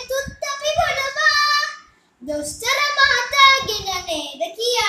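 A child singing a Sinhala verse in a sing-song melody, with a short break about two seconds in.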